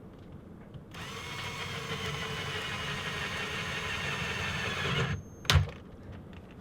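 Power drill running for about four seconds as it bores into a coconut, growing louder as it goes, then a single sharp knock about five and a half seconds in.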